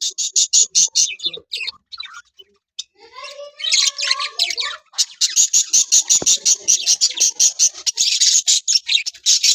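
Caged small parrots chirping in a rapid, steady run of high chirps, about eight a second, broken by a short pause about two seconds in and a stretch of lower, warbling chatter in the middle before the fast chirping resumes.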